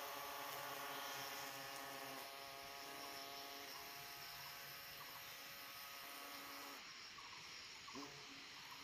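Faint steady buzzing hum of paper wasps' wings at their nest, fading over the first few seconds, with one brief faint sound near the end.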